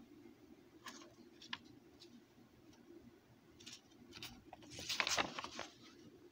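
A paper page of a hand-drawn picture book being handled and turned: a few light clicks and taps, then a louder, brief rustle of paper about five seconds in.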